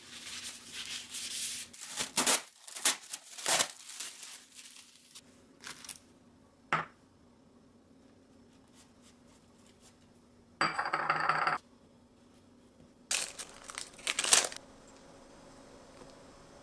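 Paper towel rubbing over a wooden cutting board and a clear plastic sandwich-wrap sheet crinkling as it is handled, in short rustling bursts, with a single sharp tap near the middle.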